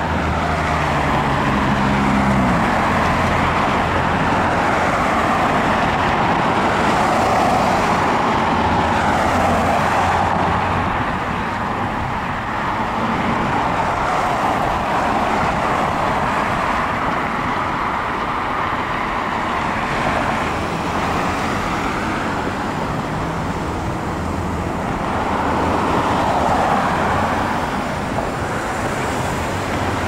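Road traffic at a multi-lane intersection: cars and pickup trucks driving past with steady tyre and engine noise that swells as vehicles go by, loudest about a quarter of the way in and again near the end. An engine's note rises in the first couple of seconds as a vehicle pulls away.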